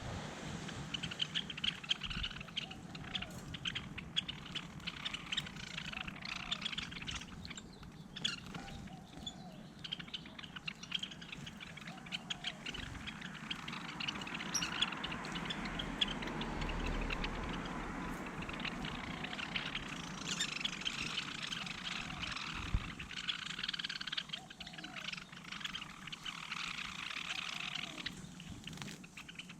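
Small birds chirping and twittering, with scattered light clicks and taps among the calls.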